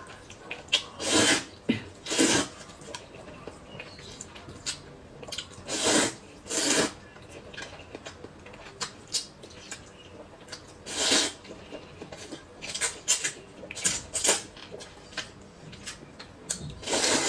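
Noodles being slurped in several loud bursts, with short light clicks of chopsticks against a metal bowl between them.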